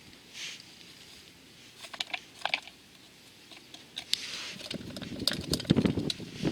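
Scattered light clicks and taps, with rustling that grows busier over the last two seconds.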